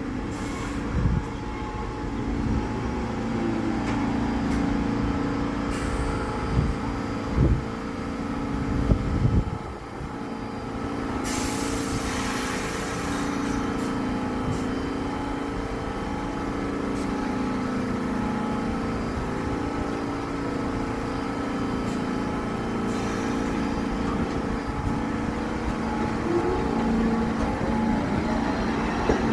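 An R46 subway train rolls slowly past with a steady motor hum. A few sharp clanks come in the first ten seconds, and a short hiss about eleven seconds in.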